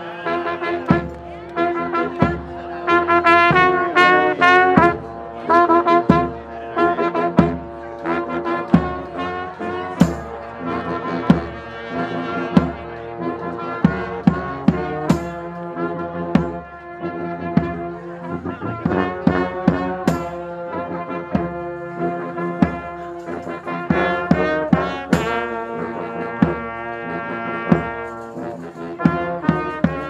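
Live street brass band playing a tune: trombones, saxophones, horns and a sousaphone over a bass drum beat, with sharp drum hits throughout.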